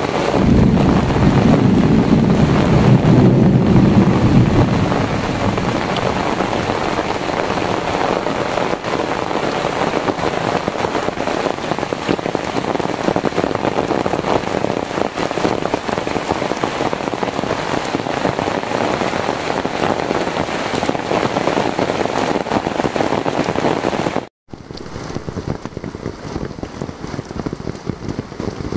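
Heavy rain falling steadily on foliage and ground, a dense even hiss, with a louder low rumble in the first few seconds. About four seconds before the end it drops out for an instant and resumes quieter and duller.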